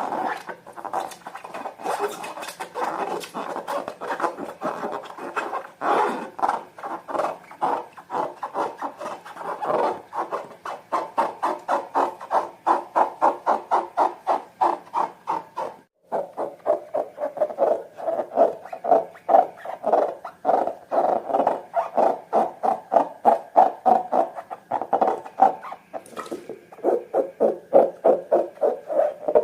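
Slime being squished and pressed by hand, making rhythmic wet squelching and popping about three times a second, with a brief break about halfway through.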